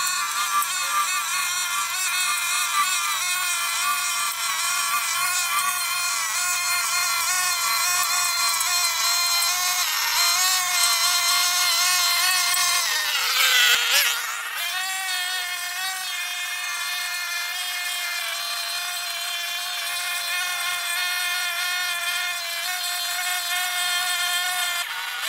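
Backpack brush cutter's small engine running at high revs as it cuts grass, a steady high-pitched whine. About halfway through, the pitch drops sharply for a moment and climbs back.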